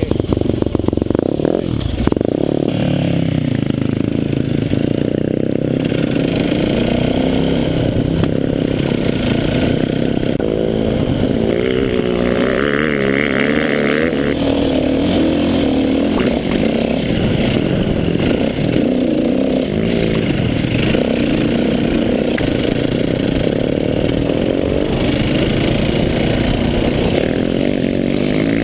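KTM dirt bike engine running hard as the bike is ridden over sand, its pitch rising and falling with the throttle and gear changes.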